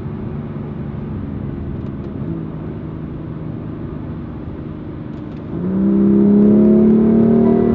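BMW M2 Competition's twin-turbo 3.0-litre inline-six and exhaust heard from inside the cabin, cruising steadily, then about five and a half seconds in the throttle opens and the engine note gets much louder and climbs in pitch as the car accelerates, easing off right at the end.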